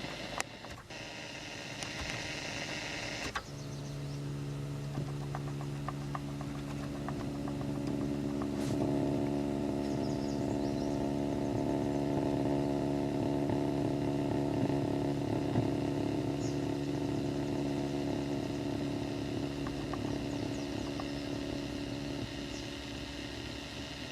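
A 1988 Chevy's engine takes over from a hissing whine about three seconds in and runs at a steady pitch. It grows louder from about nine seconds in.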